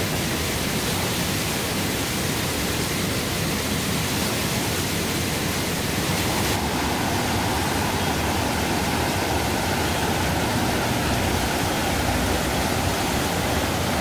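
Mountain stream water rushing and cascading over bare rock slabs, a dense, steady rush at close range. About six and a half seconds in, the sound shifts slightly, with more hiss in the upper range, as another stretch of cascades is heard.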